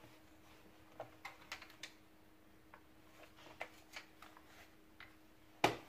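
Light plastic clicks and taps as the top cover of a Philips SpeedPro vacuum cleaner's floor head is fitted into place, with a louder knock near the end.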